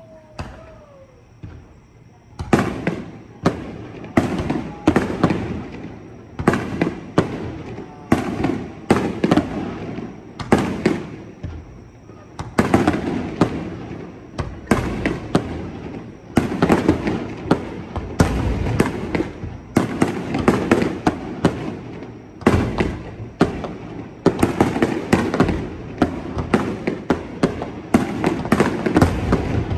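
Fireworks display: shells bursting one after another in a dense run of loud bangs, beginning about two and a half seconds in and going on in clusters with brief lulls.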